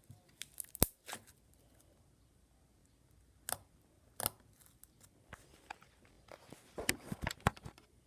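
Slime being squished and stretched by hand, giving off scattered sharp pops and crackles, the loudest a little under a second in and a quick cluster near the end.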